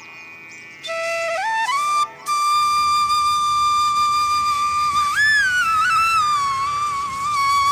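Solo flute music: a single melodic line that slides up into a long held high note, bending up and back down about halfway through.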